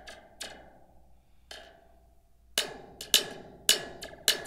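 Large steel toy spring tapped with a pen, about six taps, spaced out at first, then coming faster and louder about every half second. Each tap is followed by a brief ringing twang along the coil: the laser-shot 'pew' that dispersion in the spring gives.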